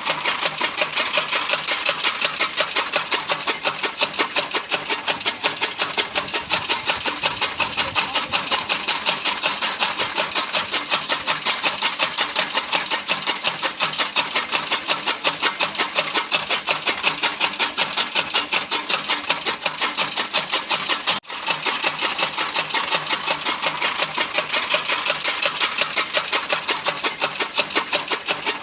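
Fodder cutting machine (chaff cutter) running steadily, its rotating blades chopping in a fast, even rhythm. The sound breaks off for an instant about 21 seconds in.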